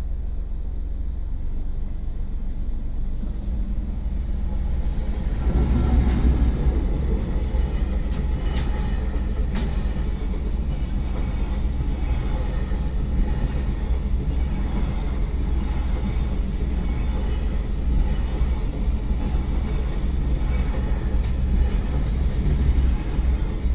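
Freight train hauled by an EF210 electric locomotive passing close by. It gives a steady low rumble that swells about five seconds in and stays loud, with a couple of sharp clicks from the wheels on the rails.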